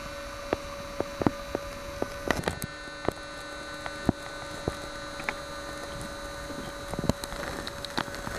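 Steady electrical hum with a thin high whine, with scattered sharp clicks and knocks over it, a dense cluster about two and a half seconds in.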